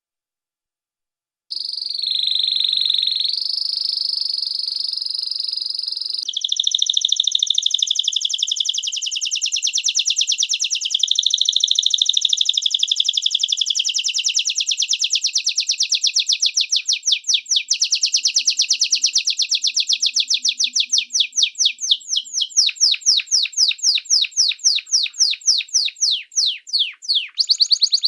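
Domestic canary singing, starting about a second and a half in. It opens with held rolling notes, then runs a fast, even trill that slowly widens into distinct repeated notes, and ends with a series of downward-sweeping notes, a few a second.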